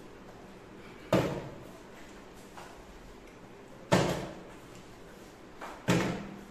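Small plastic water bottle hitting a wooden table three times in bottle-flip throws: three sharp knocks, each fading quickly.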